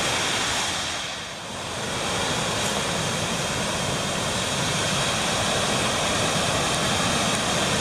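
Steady rushing roar of water pouring over a river dam, dipping briefly about a second and a half in.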